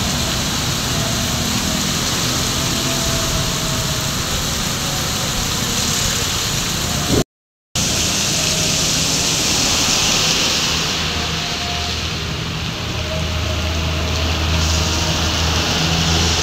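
Heavy tropical downpour with traffic passing through it: steady rain hiss mixed with car and motorbike engines and tyres on the flooded road. The sound cuts out for a moment about seven seconds in, and in the second half a low engine drone comes up under the rain.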